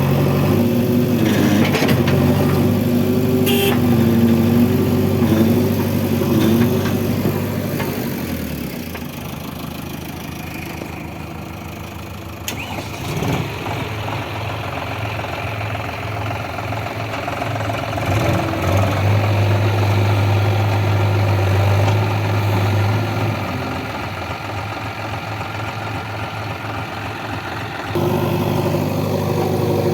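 Diesel engine of a JCB 3DX backhoe loader running under working load, its pitch wavering and rising and falling in the first several seconds, then dropping to a lower, steadier note, and picking up again near the end.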